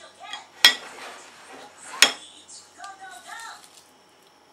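Two sharp clinks about a second and a half apart: steel kitchen scissors knocking against a ceramic plate while snipping the legs off sweet shrimp heads.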